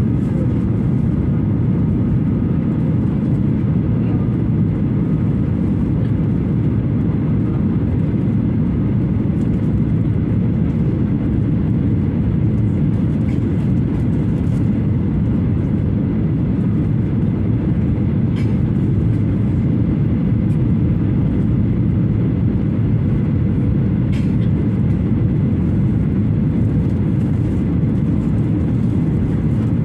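Steady low roar inside a jet airliner's cabin in flight, with its wing flaps extended: engine and airflow noise.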